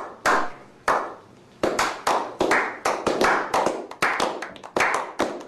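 A small group of people clapping: two single claps about a second apart, then quicker, overlapping claps for the rest.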